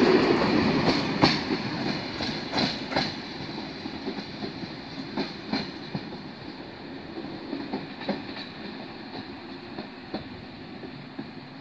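A Corail passenger train rolling past and moving away, its wheels clicking over the rail joints while the rumble fades steadily.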